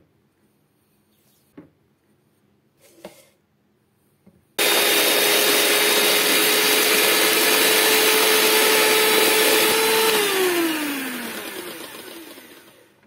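After a few quiet seconds with a couple of soft knocks, an AEG electric hand mixer starts abruptly and whirs steadily, its beaters whipping egg whites and sugar in a plastic jug to a stiff meringue. Near the end its pitch drops and the sound fades as it slows and winds down.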